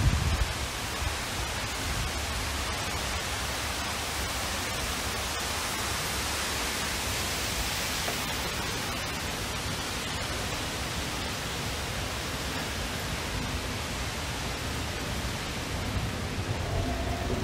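Steady rush of falling water, an even hiss with no breaks.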